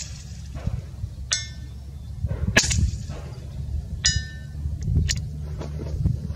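A .25-calibre Edgun Leshiy 2 PCP air rifle firing three sharp shots about two and a half seconds apart. After each of the first two, about a second and a half later, comes the short metallic ding of the pellet striking a steel target. A low wind rumble runs underneath.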